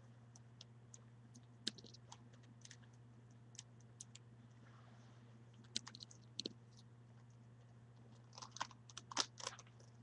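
Plastic Rubik's cube clicking faintly as its layers are twisted, in scattered single clicks with a quick run of clicks near the end, over a low steady hum.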